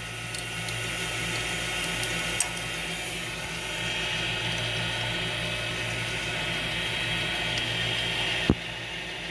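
A metal lathe running with a steady hum. About three and a half seconds in, a higher steady whine joins it, and this stops with a sharp click near the end.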